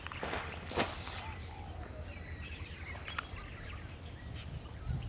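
Two or three footsteps crunching on dry, litter-strewn ground in the first second, then birds chirping over a low steady rumble.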